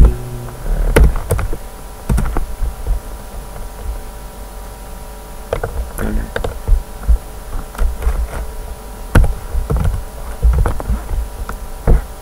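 Computer keyboard keys tapped in scattered, irregular clicks with short pauses between, over a steady electrical hum.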